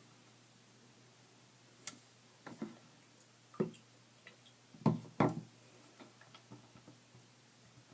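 A few light clicks and knocks, irregularly spaced, the loudest two close together about five seconds in: small plastic action figures being handled and knocked against each other or the washing basin.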